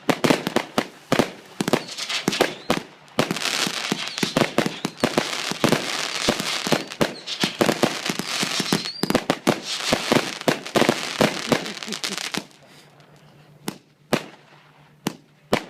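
A compound firework battery firing shot after shot: rapid sharp bangs, thickening after a few seconds into a dense continuous crackle of many shots, which drops off near the end to a few scattered single bangs.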